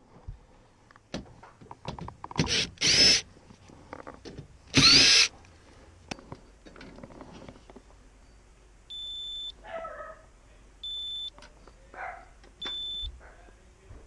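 A cordless drill runs in two short bursts, each spinning up with a rising whine. From about nine seconds in, a high electronic beep sounds about every two seconds, with short bark-like sounds between the beeps.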